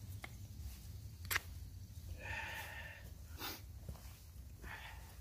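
Wind rumbling on the microphone, with a few sharp clicks, the loudest a little over a second in, and a short pitched call about two seconds in.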